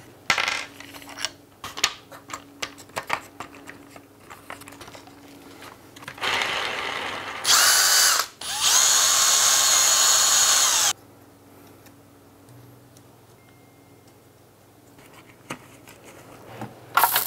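Light knocks and clicks of wooden parts being handled and fitted, then a power drill running about six seconds in: a short burst, a brief stop, then a longer steady run with a whine that cuts off abruptly.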